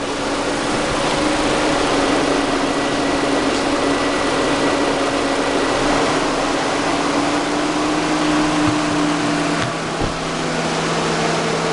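Toyota RAV4 engine idling steadily, with a steady hum over it, while the charging system is tested; the alternator is failing, which the tester reads as a shorted diode. About ten seconds in there are a couple of clicks and the hum drops to a lower pitch.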